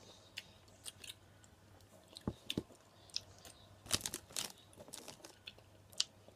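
Close-up chewing of Sour Patch Kids gummy candy: irregular short mouth clicks and smacks, with a few louder ones about two seconds in and around four seconds in.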